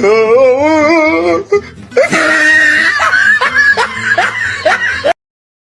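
Laughter mixed with music, cutting off abruptly about five seconds in.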